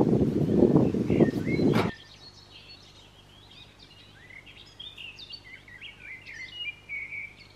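A loaded wheelbarrow rumbling and rattling as it is pushed over rough ground, loudest for the first two seconds, then small birds singing with quick chirping, warbling notes.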